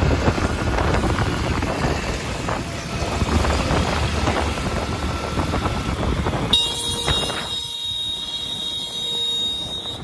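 Hero motorcycle riding through traffic: engine and road noise with wind rushing over the microphone. About six and a half seconds in, the sound changes suddenly to a quieter background with a steady high whine.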